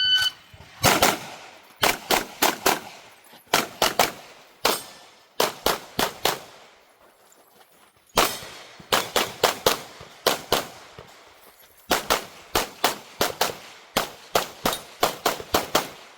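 Shot timer beep, then a Sig P320 pistol fired fast in pairs and quick strings of shots, with brief pauses between strings: a practical-shooting stage run against the clock.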